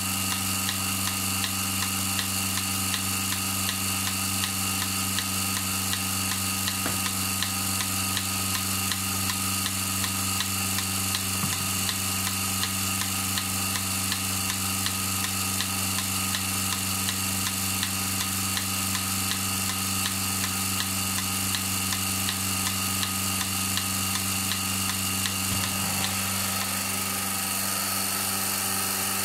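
Milking machine running: the vacuum pump motor hums steadily while the pulsator ticks in an even rhythm as the cow is milked. The ticking fades out near the end while the hum carries on.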